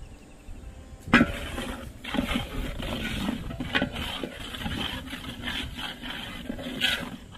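Long metal ladle stirring salt into thick masala gravy in a metal cooking pot. It scrapes and rubs along the pot, with a few sharp knocks against it, starting about a second in.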